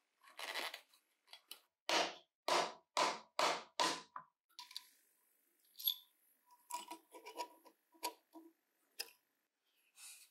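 Hand work on small metal parts in a workshop: a run of rhythmic scraping strokes, about two a second, then a series of light metallic clicks and clinks.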